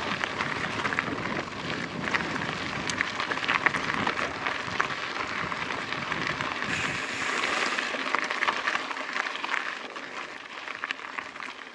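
Mountain bike's Maxxis tyres rolling over loose, hard gravel: a steady crunching crackle scattered with small stone clicks, easing off about ten seconds in.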